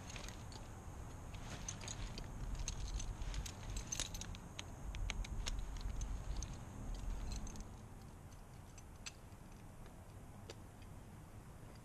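Metal hardware on a New Tribe Monkey Beaver tree-climbing saddle clinking and jangling as it is slung on and buckled, in quick irregular clicks that thin out after about eight seconds.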